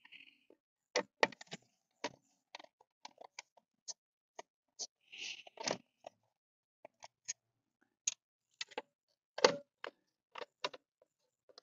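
Hands working a headlight bulb and its plastic housing: irregular light clicks and clacks, with brief scraping rustles just after the start and about five seconds in, and a louder knock near the end.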